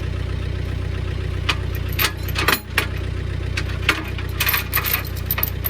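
Tractor engine idling steadily while a log chain clinks and rattles in a series of sharp metallic clicks, being wrapped and snagged tight around a log for dragging.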